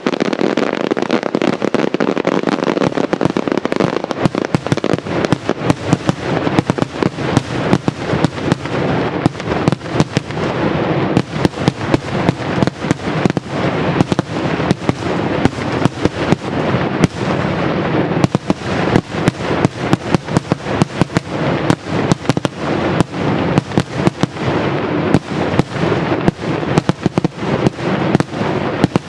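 Maltese daylight fireworks: a long unbroken barrage of sharp bangs and cracks, several reports a second, running on over a continuous rumbling crackle.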